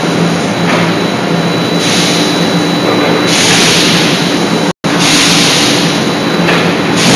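Loud, steady industrial machinery noise with a low hum, typical of a hydraulic forging hammer's power unit running. The sound cuts out for an instant about two-thirds of the way through.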